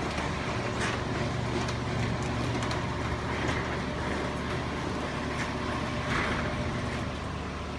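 Chamberlain garage door opener running steadily as it raises the door, with a few faint creaks from the rollers in the side rails.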